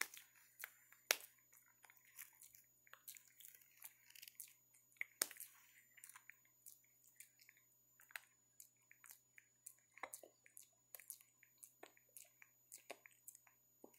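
Faint, irregular small clicks and smacks of macaques grooming up close, picking through hair and mouthing what they pick, with a few sharper clicks about a second in and about five seconds in.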